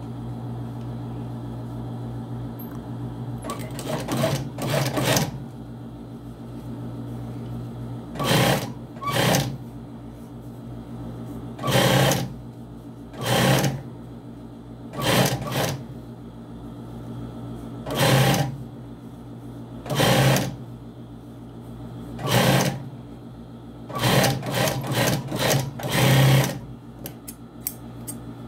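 Sewing machine stitching in short stop-start runs, each a second or less, with pauses between, over the steady hum of its motor. A few light clicks come near the end.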